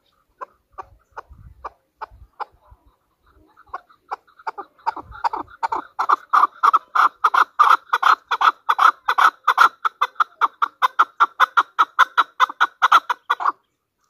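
Chukar partridge calling: a few scattered clucking notes that build, about five seconds in, into a loud, rapid, even run of calls, about four a second, which stops abruptly near the end.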